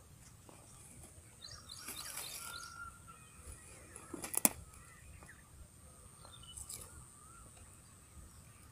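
Small birds chirping in short, quick series, with one sharp click about four and a half seconds in.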